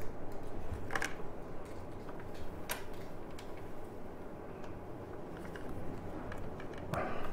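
A few light clicks as a nut is threaded by hand onto a bolt in the motorcycle's rear suspension linkage, over a low steady hum.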